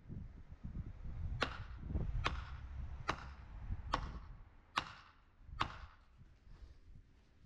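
Hammer striking the top of a square timber post six times, about one blow a second, driving the post into the ground.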